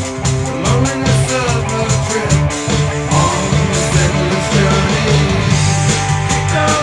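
A rock band playing a song: electric guitar and drums with a sung vocal line.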